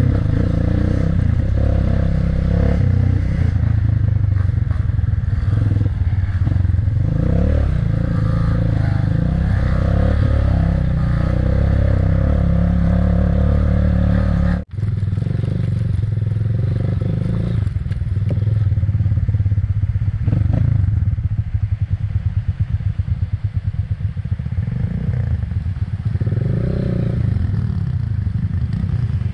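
Motorcycle engine running as the bike is ridden. The sound drops out for an instant about halfway through, and in the last third the engine sound pulses rapidly and unevenly.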